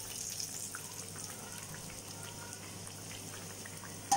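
Hot oil sizzling and crackling around puff pastries deep-frying in a pan, with a sharp metal clink near the end as the slotted steel spoon meets the steel plate.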